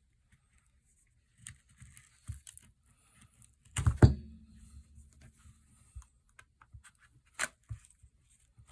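Small clicks and scrapes of hand tools prying under the glued back glass of a Samsung Galaxy S20 Plus, with a loud knock about halfway through and a sharp click near the end.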